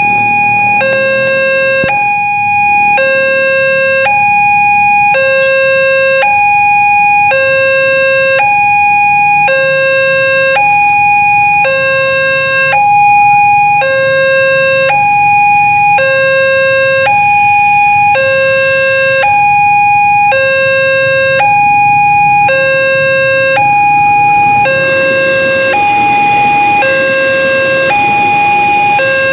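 Railway level-crossing warning alarm sounding an alternating two-tone electronic ding-dong, high and low tones taking turns about once a second each pair. Near the end the noise of a train passing over the crossing rises under it.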